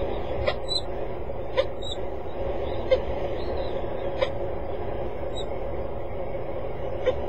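Steady outdoor background rumble on a rooftop webcam microphone, with about five short sharp ticks spread through it and a few faint high chirps.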